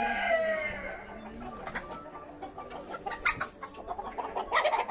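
A rooster's crow trails off, falling in pitch and fading over the first second or so, then a flock of hens and roosters clucking.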